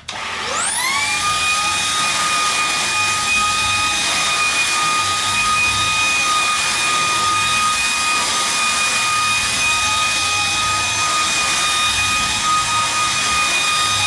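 A cordless stick vacuum switched on: its motor whines up to speed within about a second, then runs steadily with a high whine over the rush of air as it vacuums the rug.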